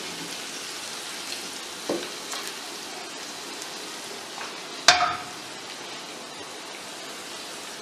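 Garlic, green chilies and cumin sizzling steadily in hot ghee in a small tempering pan, the stove just switched off. Two knocks of cookware on the stove, about two and five seconds in, the second louder.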